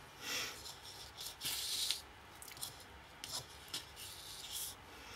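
A sheet of cardstock rubbing and rustling under the hands in several short scrapes, with a few light clicks.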